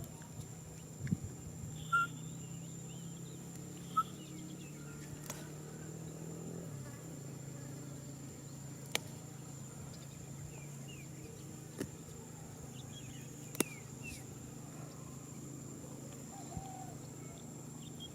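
Faint outdoor ambience: a steady high insect drone over a low steady hum. A few short high squeaks come at about two and four seconds and again later, with a few sharp clicks.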